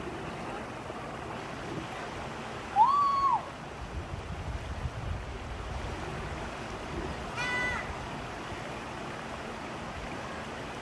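Shallow stream water running steadily over rocks. A short, loud, high call rises and falls about three seconds in, and a briefer, thinner call comes near the eighth second.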